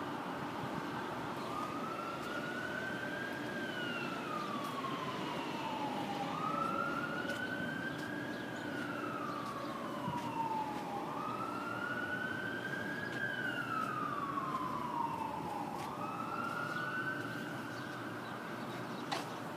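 Emergency vehicle siren in a slow wail, rising and then falling in pitch four times, about once every five seconds, starting a second or two in, over steady background noise.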